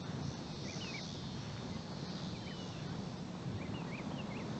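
Wind rumbling on the microphone, with small birds chirping in short, high calls several times.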